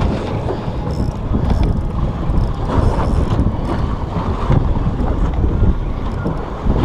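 Wind buffeting the camera microphone on an open boat at sea: a loud, irregular low rumble.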